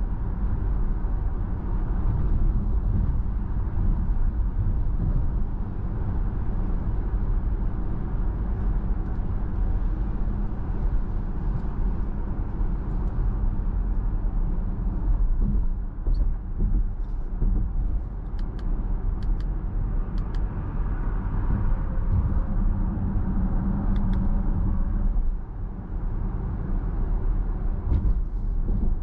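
Steady road and tyre rumble with a low drone inside the cabin of a 2021 Audi Q5 45 TFSI cruising at about 50 mph. A few faint ticks come about two-thirds of the way through.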